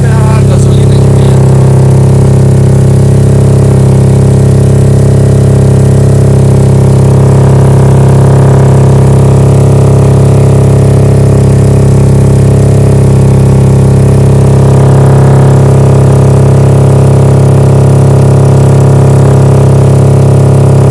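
Honda CBX 250 Twister single-cylinder engine idling steadily and loudly through a Roncar aluminium SS aftermarket exhaust.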